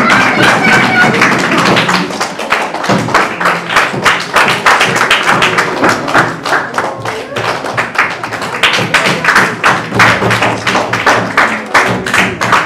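A room full of people clapping, sustained applause for several seconds.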